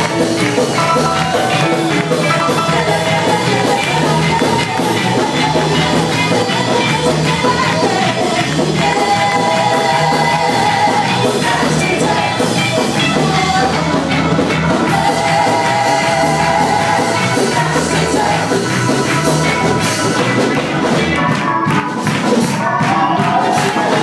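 Live church worship band playing and singing, with a keyboard and several vocalists; the singers hold long notes twice along the way.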